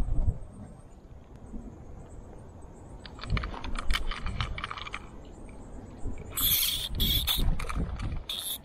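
Pink Disney Princess kids' rod and reel fighting a hooked snook: rapid clicking from the reel about three seconds in, then several short hissing buzzes from the reel from about six seconds on as the fish pulls.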